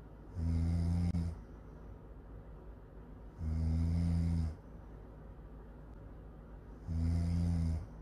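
A young woman snoring in her sleep: three low-pitched snores about a second long each, one roughly every three seconds.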